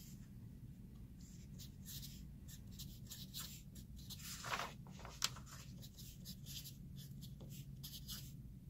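Sharpie permanent marker writing on paper, faint, in short irregular scratchy strokes, with one sharp tick about five seconds in. A low steady hum runs underneath.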